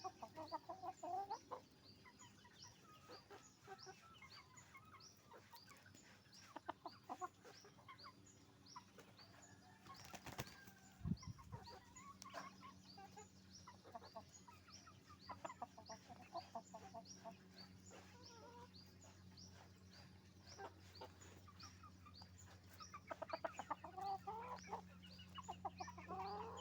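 Chickens clucking in short bursts, with a high thin peep repeated about twice a second throughout and a brief flurry with a thump about ten seconds in.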